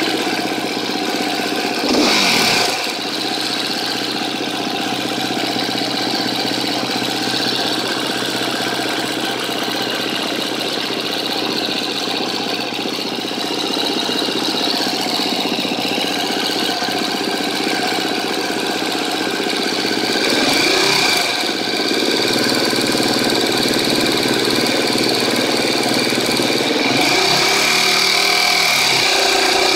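2013 KTM 250 EXC-F single-cylinder four-stroke engine idling with a ticking, which the owner suspects is a bad cam tensioner. The throttle is blipped briefly about two seconds in and again about twenty seconds in, and the revs are raised and held near the end.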